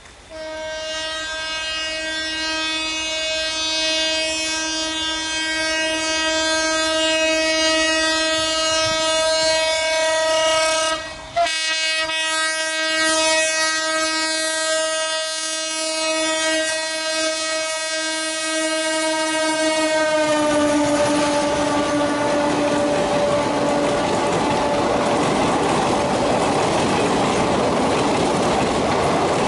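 A locomotive horn blows one long blast of nearly twenty seconds, broken for an instant about eleven seconds in. Its pitch drops slightly as the locomotive passes. Then comes the rumble and clickety-clack of the train's coaches rolling past.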